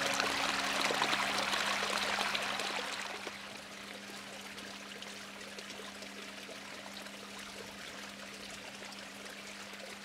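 Water pouring and splashing down a cement fountain spillway into a fish pond, a steady rushing that settles to a softer flow about three seconds in.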